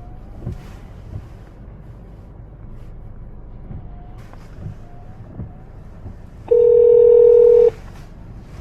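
Steady road noise inside a Toyota Corolla's cabin with a few light bumps. About six and a half seconds in, a loud steady phone ringing tone plays once for about a second over the car's hands-free system as an outgoing call dials.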